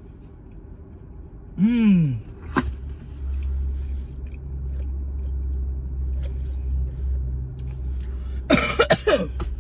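A woman coughing and choking in several hard bursts near the end, after food or drink has gone down the wrong way, over a low steady rumble. Before that there is a brief falling vocal sound.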